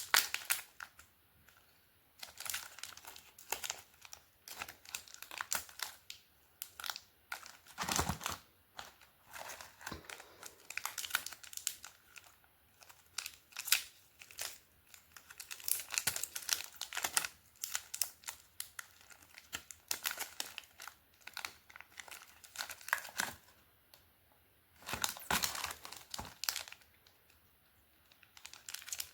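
Chocolate wrappers and packaging crinkling and tearing as they are handled and opened, in irregular bursts of crackling with short pauses between.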